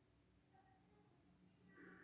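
Near silence: room tone with a faint, indistinct sound near the end.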